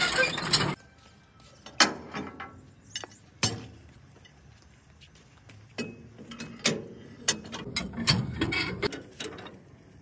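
Metal clanks and scrapes of a tractor's starting crank handle being fitted into the crank hole at the front of the engine, a dozen scattered knocks with a denser clatter near the end. A loud rattling noise fills the first second.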